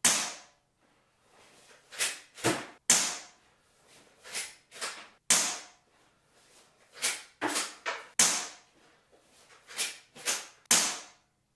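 Umarex Legends Cowboy underlever CO2 air rifle fired five times, a sharp crack with a short hissy tail every two and a half to three seconds. Between shots the lever action is worked, two clacks each time, cycling the cartridge-style shells.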